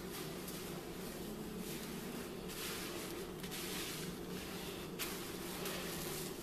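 Hands working conditioner through wet hair, a squishing, rustling rub that swells and fades in uneven strokes, over a steady low hum. One sharp click about five seconds in.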